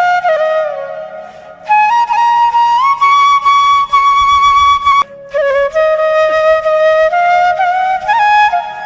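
Background music: a flute playing a slow melody of held notes with slides between them. The tune fades out about a second in, comes back, and breaks off briefly about five seconds in.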